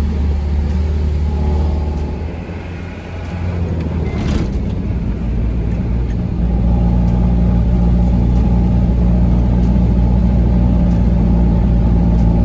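Truck engine heard from inside the cab, pulling up a steep hill that is hard going for trucks. The engine drops off briefly about two seconds in, then runs louder and steadier from about six seconds in.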